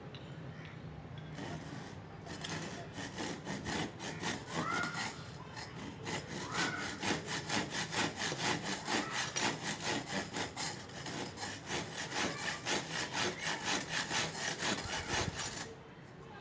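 Hand saw cutting through wood in steady back-and-forth strokes, about two a second; it starts a second or two in and stops shortly before the end.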